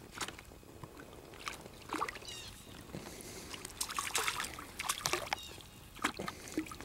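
A hooked crappie splashing and thrashing at the water's surface as it is reeled in, in short irregular splashes that come more often in the second half.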